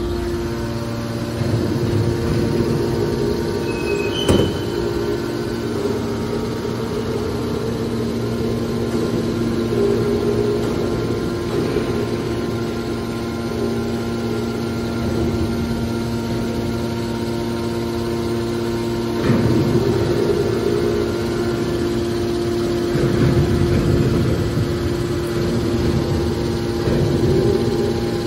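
Hydraulic scrap metal baler running: a steady hum from its motor and hydraulic pump, with a sharp knock about four seconds in and a few louder stretches of pressing noise later on.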